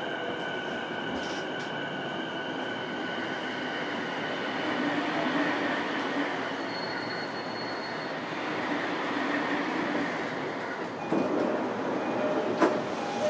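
JR East E233 series electric train heard from inside a motor car while running: a steady whine from the electric drive that fades out after about four seconds, over continuous wheel-and-rail running noise. Near the end the running noise grows louder and rougher, with a few sharp knocks.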